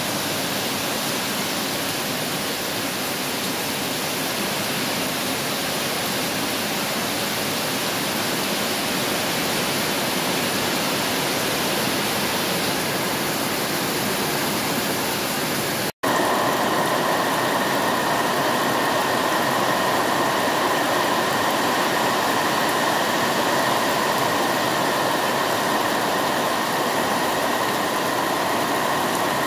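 Heavy rain falling steadily: an even, continuous hiss. About halfway it drops out for an instant and comes back louder, a fuller rush of downpour with water pouring off a roof edge.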